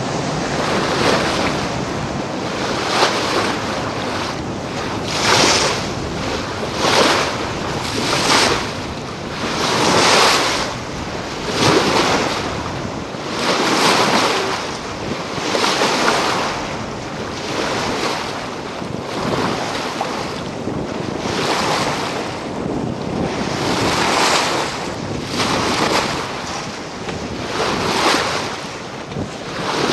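Wind-driven river chop splashing and washing against a boat in rhythmic surges about every one and a half to two seconds, with wind buffeting the microphone.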